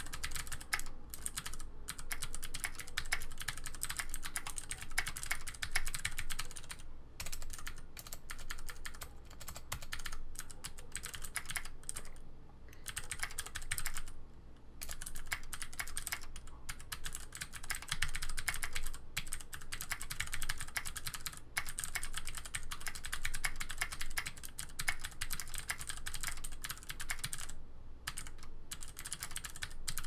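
Continuous fast touch typing on a Ducky Mini 60% mechanical keyboard with clicky Cherry MX Green switches, plate-mounted in a heavy aluminium case: a dense stream of key clicks with a few short pauses.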